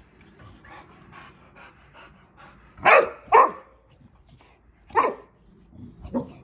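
Boxer dog panting, with short barks: two close together about halfway through, another a little later, and a softer one near the end.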